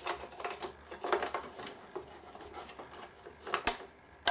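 Plastic cover of a Mitsubishi inverter being handled and pushed onto its housing: light scraping and rattling of plastic, with two sharp clicks near the end as the cover snaps toward place.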